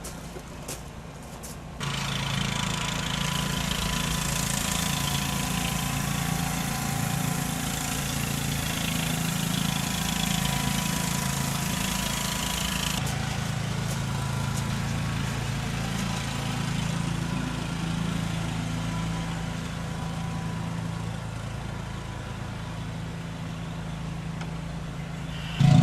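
An engine running steadily, getting suddenly louder about two seconds in and easing somewhat after about thirteen seconds.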